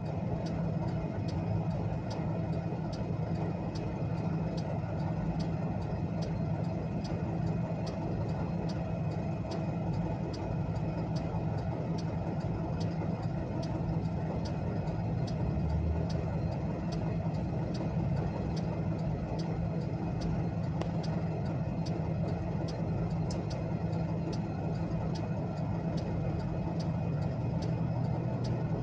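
A car's hazard-light flasher relay ticking steadily and evenly, heard from inside the cabin. Under it is the low, steady hum of the idling engine.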